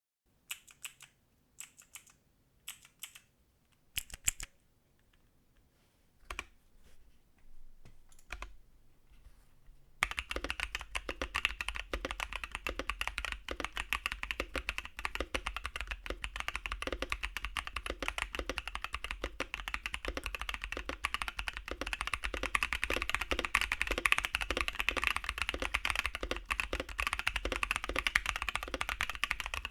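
Typing on a custom 65% mechanical keyboard (Space65) with lubed Gazzew Boba U4T tactile switches and PBT keycaps. A few separate key clicks and knocks come first, then about ten seconds in, fast continuous typing starts and runs on.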